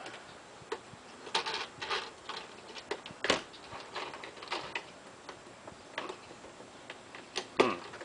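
Irregular clicks and light knocks as a trailer baggage door is pushed shut and its slide-action lock is worked by hand, with two sharper knocks about three and seven and a half seconds in.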